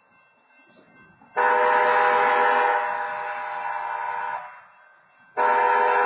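Train horn sounded for a grade crossing, a chord of several steady notes. The first long blast starts abruptly about a second and a half in and stops after about three seconds; after a second's gap a second long blast begins near the end.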